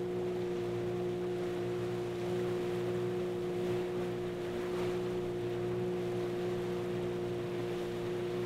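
Outboard motor running at a steady speed with an even hum, driving a small open river boat, with water rushing along the hull.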